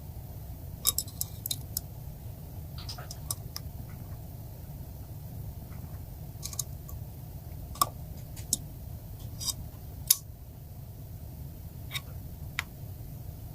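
Scattered light clicks and taps of small hard parts being handled, over a steady low hum.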